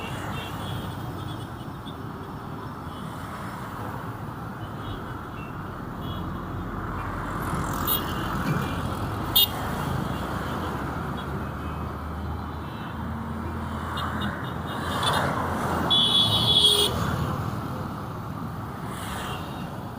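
Street traffic: a steady mix of passing car and truck engines and tyre noise. A sharp knock comes about nine and a half seconds in, and a louder vehicle passes with a high tonal squeal a few seconds before the end.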